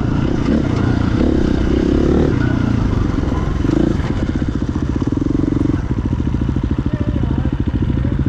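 KTM dirt bike engine running as the bike rolls along a dirt road and slows, its pitch shifting with the throttle; from about four seconds in it settles to idling with an even, pulsing beat.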